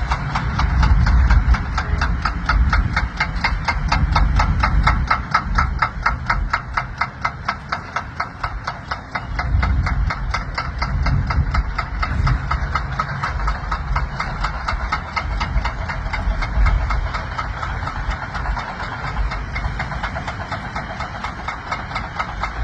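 Heavy diesel engine of a construction vehicle running steadily, with a low rumble and a fast, even clatter.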